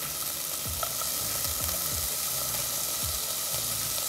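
Broccoli stir-fry sizzling steadily in hot oil in a nonstick pan as lemon juice is squeezed into it.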